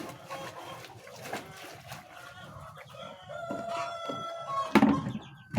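Chickens clucking, and a rooster crowing once about three seconds in with a single long call. Near the end there is a loud thump.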